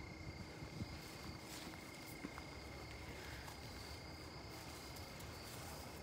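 Evening chorus of crickets in a grassy prairie: a steady, unbroken high trill with a fainter, wavering higher shimmer.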